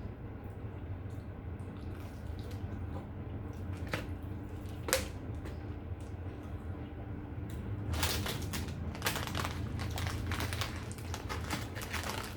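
Close-up mukbang eating sounds: wet chewing and mouth smacking over a steady low hum, turning into a dense run of crisp crackles from about eight seconds in.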